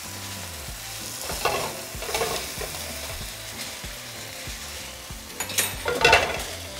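Butter and oil sizzling steadily in a frying pan as cooked chicken breasts are lifted out with a fork. A few knocks and clinks come from the fork and the glass dish, with the loudest clatter near the end.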